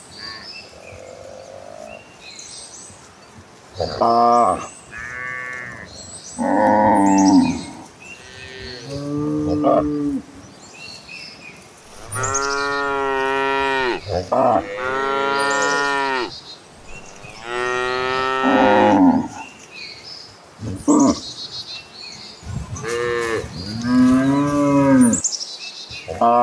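Cattle mooing: a dozen or so long calls from several animals at different pitches, some overlapping, one after another every second or two.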